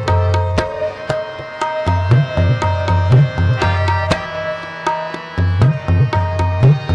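Instrumental interlude of Sikh Gurbani kirtan: harmonium holding and moving through steady melody notes over a fast tabla rhythm, with deep bass strokes from the left-hand drum coming in stretches.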